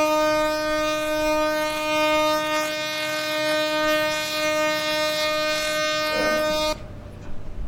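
Ship's horn sounding one long, steady blast that cuts off suddenly near the end.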